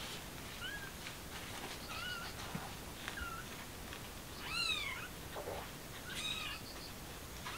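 Newborn kittens mewing: about five short, high squeaks, each rising then falling in pitch, the loudest about four and a half seconds in. These are the distress mews of a kitten being taken in its mother's mouth and let go again.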